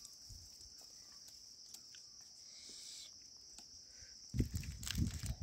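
Steady high-pitched buzzing of an insect chorus, with scattered faint clicks. From about four seconds in come loud, irregular low thumps and rumbling.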